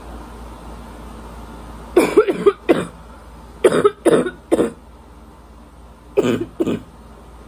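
A woman's harsh, congested barking cough in three fits a second or two apart, each a quick run of two to five coughs. The uploader puts the congestion down to allergies.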